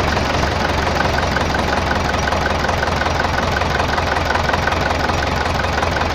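Tractor diesel engine idling steadily with a light regular ticking, about four ticks a second. After the knock was repaired, the owner hears something still clicking around the fuel pump and the bonnet rattling.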